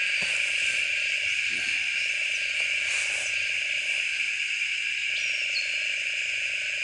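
A steady, high-pitched insect chorus, droning without a break, with a few faint short chirps over it.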